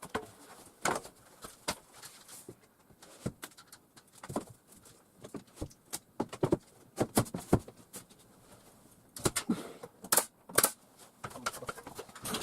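Irregular clicks and knocks from carpentry work, with a few louder strikes about seven and ten seconds in.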